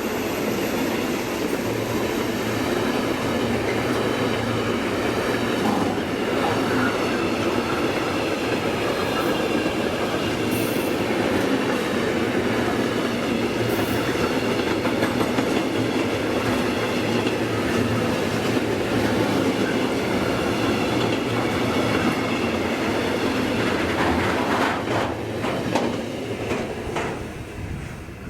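Diesel-hauled freight train's wagons rolling past steadily with loud rail noise, dying away over the last few seconds as the train passes.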